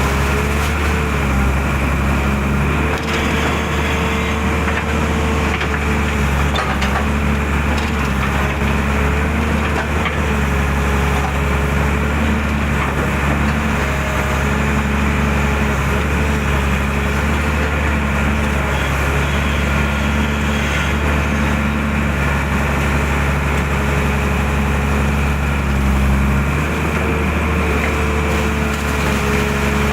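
Hydraulic excavator working: its diesel engine runs steadily, with a hydraulic whine that shifts slightly in pitch as the load changes. A few faint cracks and knocks come through now and then.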